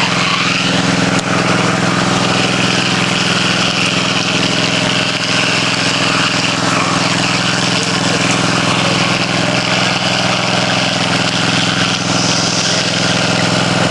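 A motor or engine running steadily with a constant even hum.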